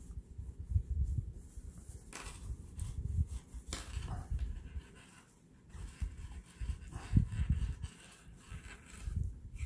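Hands rubbing, pushing and handling a fabric purse on a desk while it is turned right side out: irregular rustling and dull bumps, with a few sharp clicks and a louder bump about seven seconds in.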